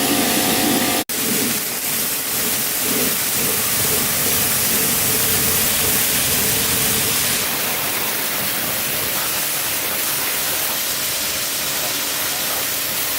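A steady, loud hiss with no clear rhythm or pitch, broken by a brief dropout about a second in.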